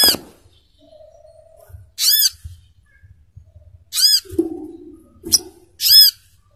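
Sogok ontong (burung kelapa) calling: a short, loud, harsh note repeated about every two seconds, four times, with some fainter lower chatter between calls about two thirds of the way through.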